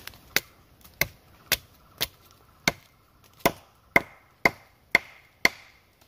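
Ten sharp knocks, like wood being struck or chopped, coming about two a second. The later ones are the loudest and each leaves a brief ringing note.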